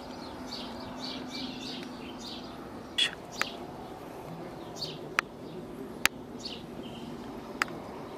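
Small birds chirping in short high notes, thickest in the first couple of seconds, with a few sharp clicks scattered through and a faint steady hum underneath.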